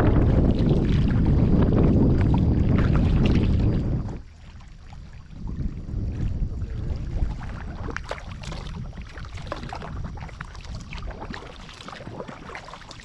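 Wind buffeting the microphone with a loud low rumble that cuts off about four seconds in. After that, quieter water sounds from kayak paddling: small splashes and drips from the paddle blades.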